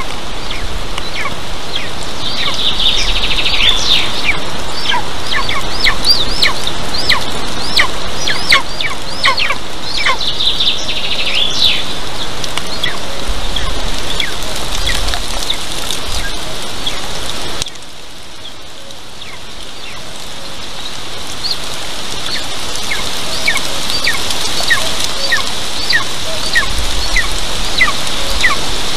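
Thin, high, downslurred chirps repeated about once a second, with two short patches of quicker twittering in the first half, over a steady hiss of light rain. The background hiss drops suddenly in level past the middle, then creeps back up.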